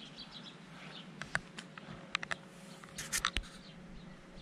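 Quiet outdoor ambience with a few faint high chirps at the start, then a scattering of sharp clicks and ticks, densest about three seconds in.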